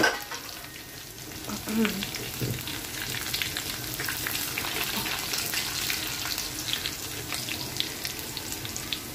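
Hot oil sizzling and crackling steadily in a frying pan of tadka, with onion, whole red chillies, cumin seeds and curry leaves frying in it. The crackle picks up after about a second.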